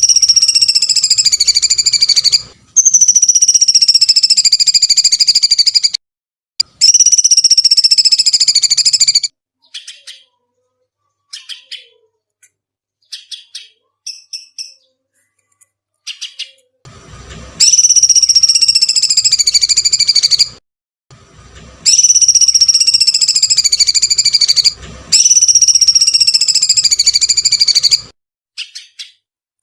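A songbird recording for training cage birds: six long, loud, high screeching notes in two groups of three, each lasting two to three seconds and falling slightly in pitch. Between the groups, about ten to sixteen seconds in, come short, faint chirps.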